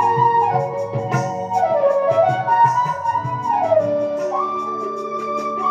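Instrumental interlude of a live Hindi song: a flute-toned melody gliding between sustained notes over a steady drone, with a rhythmic tabla beat underneath.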